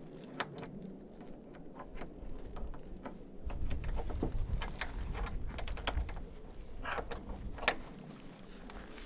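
Handling noise of a fabric storage bag being hung on a vehicle's roof rack: cloth rustling and a series of small metal clicks from its hook and clips, the sharpest click near the end. A low rumble runs for a few seconds in the middle.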